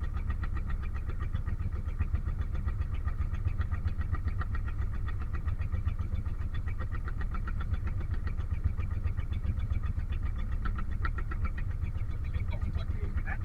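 Boat engine running steadily with a fast, even pulsing.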